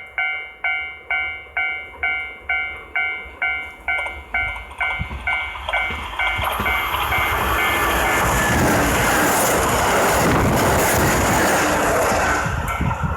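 Japanese railway level-crossing warning bell ringing about twice a second, then a Kintetsu Osaka Line train passing over the crossing: its rushing noise builds from about six seconds in, drowns the bell at its loudest, and begins to ease near the end.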